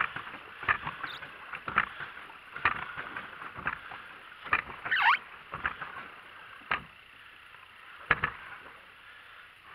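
Water splashing and knocking against a small plastic paddleboat as it moves and turns on a pond. A short splash or knock comes every half second to a second, one larger splash about halfway through, then they thin out near the end.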